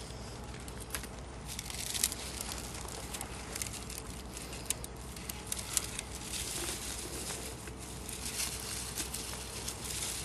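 Rustling and crinkling with scattered light clicks and ticks as bottle rockets are handled and loaded by hand, one after another.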